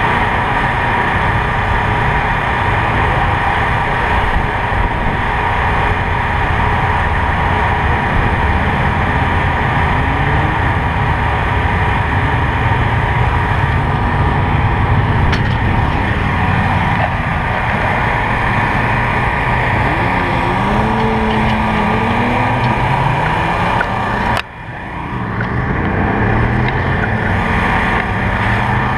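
Motorcycle engine idling steadily close to the microphone, with a few short rising revs in the second half.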